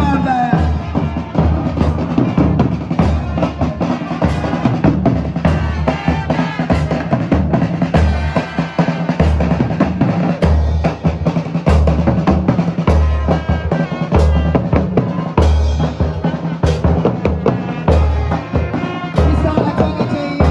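Music with a drum kit: a steady bass drum beat, snare hits and melodic lines over it.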